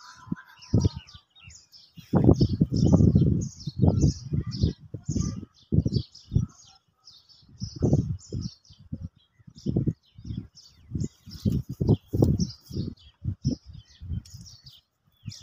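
Small birds chirping over and over, several short high chirps a second, under frequent irregular low thuds and rumbles on the microphone, which are the loudest sounds.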